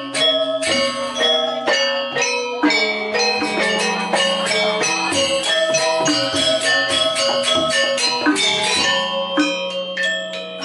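Balinese gamelan music: struck bronze metallophones and gongs playing fast, dense ringing patterns over a held low tone.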